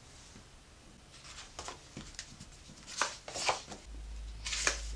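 Paper flashcards being handled and slid over one another on a table: soft rustling and scraping, with a few louder swishes of card on card in the second half. A low hum comes in about four seconds in.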